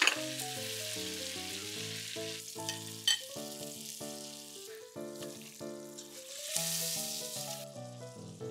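Diced bacon and a block of butter sizzling as they fry in a stainless steel pot, the sizzle swelling a little past the middle. A few sharp clicks of chopsticks against the pot, over soft background music.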